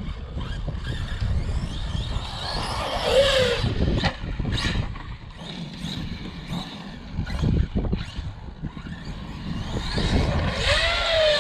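Traxxas Sledge RC truck's brushless electric motor whining as it is driven, the pitch rising and falling twice with the throttle over a rumble of tyres on dirt, with a few knocks in between. The motor's sound is off, which the owner takes for a motor on its way out, perhaps a failing motor bearing.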